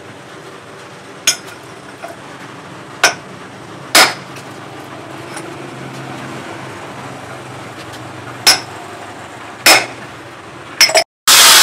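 A steel hammer head on its wooden handle knocked against an iron anvil to seat the head on the handle: about seven sharp metallic knocks, each with a brief ring, at uneven gaps of one to four seconds. Near the end these give way abruptly to the loud, steady rushing of an angle grinder sanding the wooden handle.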